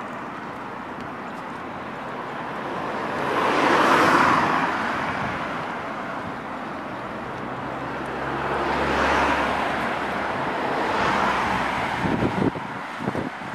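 Cars passing close by, their road and engine noise swelling and fading three times, the loudest pass about four seconds in. Near the end, gusts of wind buffet the microphone.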